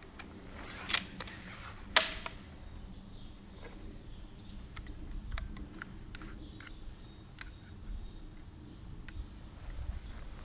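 Hand-cocking and loading of an EK Archery Cobra RX crossbow: two sharp clicks about a second apart near the start, followed by a string of faint clicks and rattles of the mechanism and bolts.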